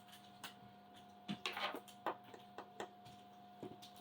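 Faint clicks and light rattling of small parts being handled during the CNC kit assembly: a handful of soft knocks, with a short cluster about a second and a half in. A faint steady hum sits underneath.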